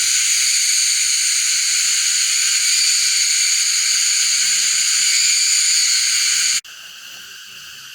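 Loud, shrill, steady drone of a cicada chorus in rainforest. About six and a half seconds in it drops abruptly to a much quieter chorus of the same kind.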